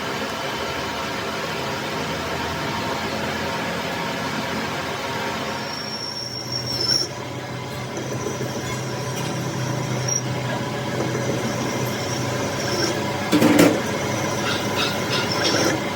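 Metalworking machine running steadily, with a thin, high metal-on-metal squeal that comes and goes and a short clatter near the end.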